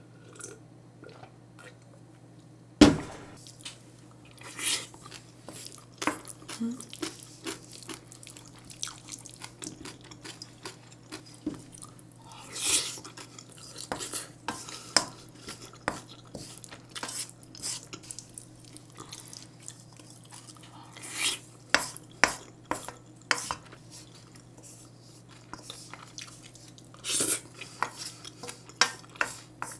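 A wooden spoon scraping and clinking against a large stainless-steel mixing bowl in many scattered short strokes, with one loud knock about three seconds in. A faint steady low hum runs underneath.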